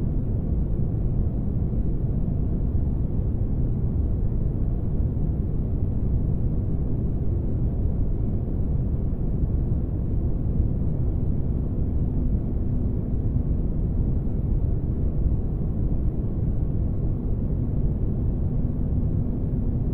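Spaceship ambience: a steady, deep rumbling noise with most of its weight in the low end. A faint hum joins it briefly about twelve seconds in and again near the end.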